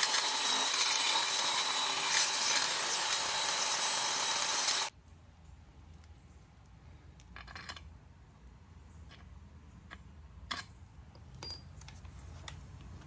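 Handheld power tool running with its bit against the work, removing ridges, cutting off abruptly about five seconds in. A few faint clicks and taps follow.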